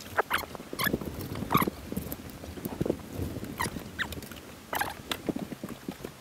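Handling noise as a fish is netted and brought aboard an aluminium boat. It is a string of irregular sharp taps and knocks, with a few short squeaky scrapes.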